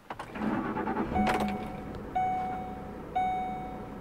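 Ford 5.4L Triton V8 cranking and catching, heard from inside the cab, on its first start after a spark plug change, then settling to a steady idle. Over the idle a dashboard warning chime dings about once a second, each ding fading away.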